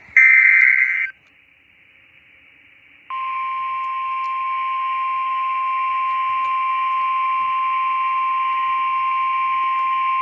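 A NOAA Weather Radio Emergency Alert System broadcast: a harsh, loud SAME digital header burst about a second long, a short gap of radio hiss, then from about three seconds in the steady 1050 Hz warning alert tone, one unbroken pitch. The tone signals that a warning follows, here a severe thunderstorm warning.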